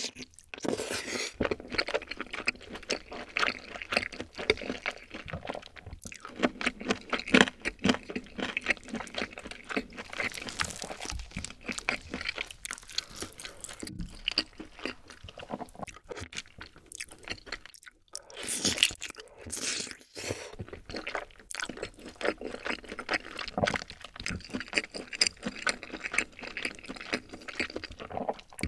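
Close-miked eating: a grilled chicken drumstick coated in rosé tteokbokki sauce being bitten and chewed, a dense run of small clicks and smacks with brief pauses near the middle.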